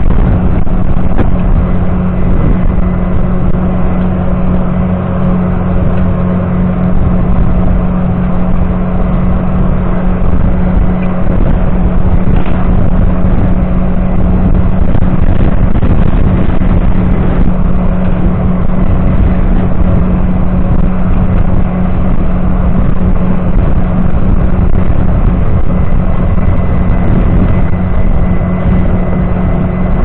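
John Deere 7710's 8.1-litre six-cylinder diesel engine running steadily under heavy load while pulling a reversible deep plough through the soil, with a constant low drone.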